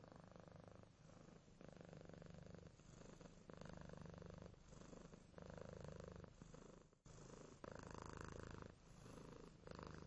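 Domestic cat purring steadily and quietly, the purr swelling and easing with each breath about once a second.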